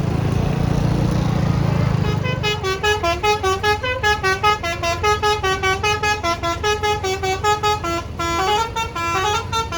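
Tour bus engine rumbling at low revs, then about two seconds in its basuri musical horn plays a fast melody of short notes stepping up and down.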